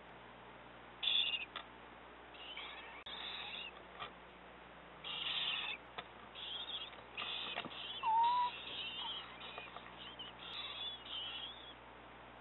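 Eastern screech owl owlets in the nest box giving raspy, hissing begging calls in short bursts, repeated throughout. There is one brief whistled note about eight seconds in.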